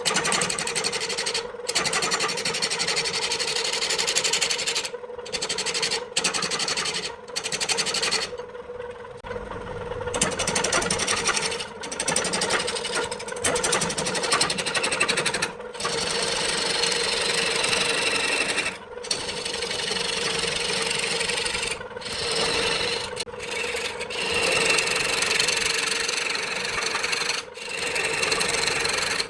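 Wood lathe running with a steady hum while a tool works the spinning wood, giving a continuous scraping hiss. The sound breaks off abruptly several times.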